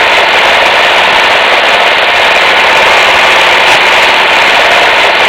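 Wood-Mizer LT15 band sawmill with its 15-horsepower engine running loud and steady.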